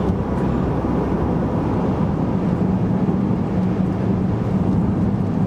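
Steady road noise inside a car driving at highway speed: tyre and engine drone with a constant low hum.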